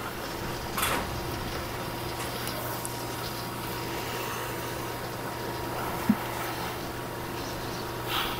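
Bowling-centre background: a steady low machine hum, with a short click about a second in and a brief sharp blip about six seconds in.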